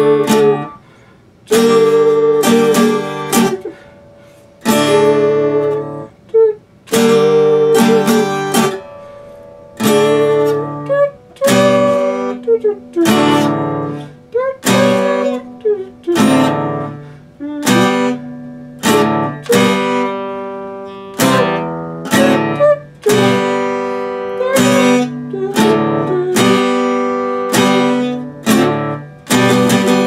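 Epiphone acoustic-electric guitar strummed, a run of ringing chords about once a second that let each chord sustain and fade before the next stroke.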